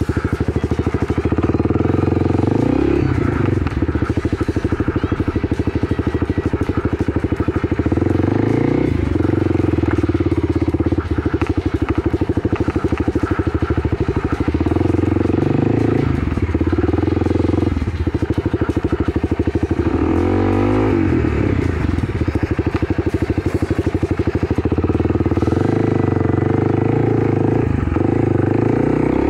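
Kawasaki KLX300 dirt bike's single-cylinder four-stroke engine running on a trail ride, its revs rising and falling repeatedly as the throttle is worked.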